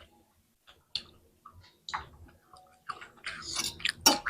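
Close-miked eating sounds: chewing with scattered wet clicks and smacks of the mouth, sparse at first and getting busier and louder near the end.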